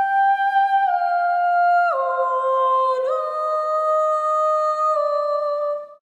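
Slow outro music: a single melody of long held notes, each lasting about a second, that steps down in pitch and then back up, fading out at the very end.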